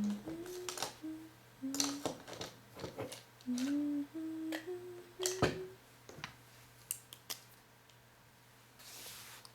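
A person humming a short, wandering tune in single sustained notes that step up and down, stopping about six seconds in, over sharp taps and strokes of a pen on paper.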